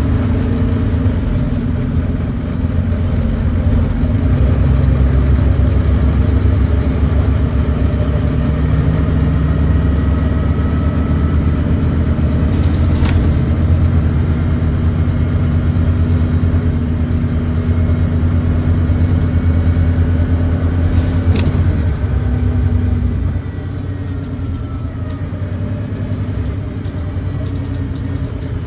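Volvo D9B 9.3-litre diesel of a Volvo B9TL double-decker bus pulling hard up a hill with an exhaust leak, the ZF Ecolife automatic gearbox downshifting a few seconds in and the engine working harder after it. The engine eases off about 23 seconds in.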